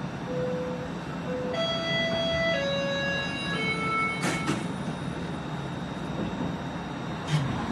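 Bombardier light rail train's door warning: a repeating single-pitch beep, then a three-note falling chime, and the doors knock shut about four seconds in. A steady low hum from the standing train runs underneath, with a faint click near the end.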